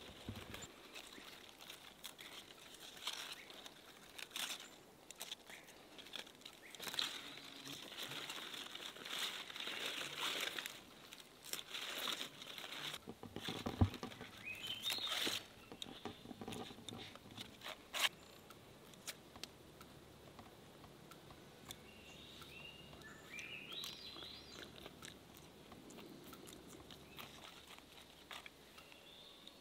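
Salad greens being picked by hand: leaves rustling, crinkling and snapping off in small irregular crunches. A bird gives a few short rising chirps now and then.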